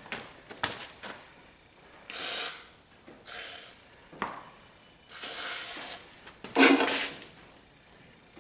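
An aerosol spray can spraying in four short hissing bursts, with a few sharp clicks between them.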